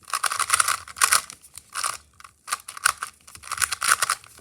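A 2x2 Rubik's cube being turned quickly by hand, its plastic layers clicking and rattling in several rapid bursts with short pauses between them.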